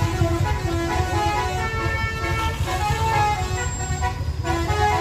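A low, steady engine rumble from heavy vehicles climbing. Over it, a multi-tone musical horn of the Indonesian 'telolet' bus kind plays a quick tune of short held notes that step up and down in pitch.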